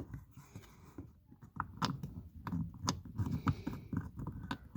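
Light, irregular clicks and taps of hands handling a plastic window-switch panel and its screw while the screw is lined up with its hole. They are sparse at first and come several a second from about a second and a half in.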